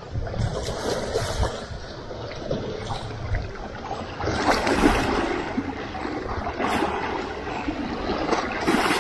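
Small lake waves lapping and splashing against shoreline rocks, swelling in several surges.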